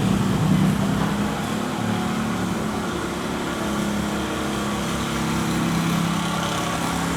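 A small engine or motor running steadily, a constant low hum with a few held tones.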